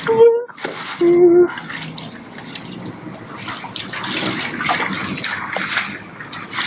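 Rain falling steadily, an even hiss of water. Two short voiced sounds come in the first second and a half.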